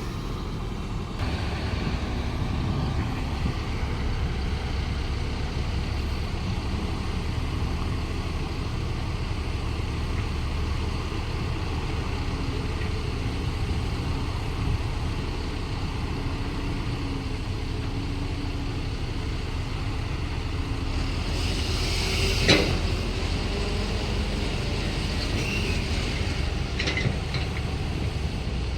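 Cat excavator's diesel engine running steadily under working load, with a wavering hum. Near the end a short hiss comes and one sharp knock stands out.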